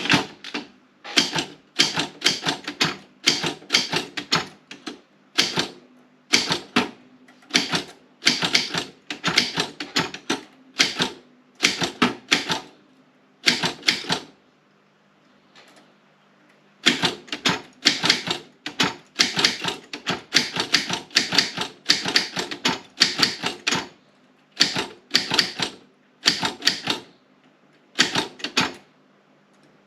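Optima M16 manual typewriter being typed on: type bars strike the platen in quick runs of keystrokes, with a short pause of a couple of seconds about halfway through.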